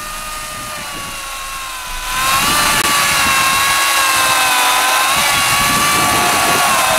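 1800-watt corded Makita electric chainsaw cutting through a dry, hard log: a steady motor whine with the chain rasping through the wood. About two seconds in, the cutting noise gets markedly louder and harsher as the chain bites deeper.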